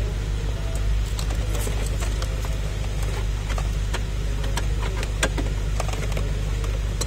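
A steady low rumble throughout, with scattered clicks and rattles as a wiring harness and plastic dashboard trim are handled behind the dash.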